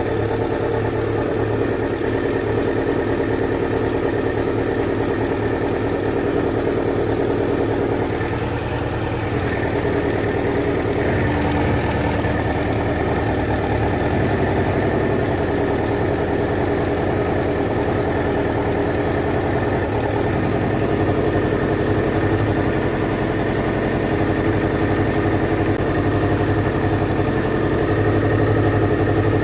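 A 2000 Kawasaki ZX-7R's inline-four engine idling steadily while it warms up, freshly started after a no-start; the idle gets a little louder near the end.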